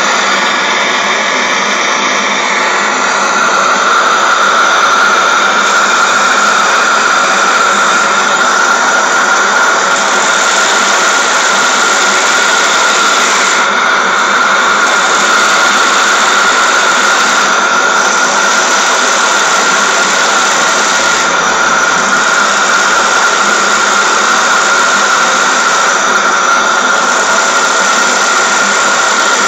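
Homemade three-cylinder single-acting oscillating steam engine running fast, giving a steady hiss of exhaust steam with a high, constant whine over it. It grows a little louder about three seconds in.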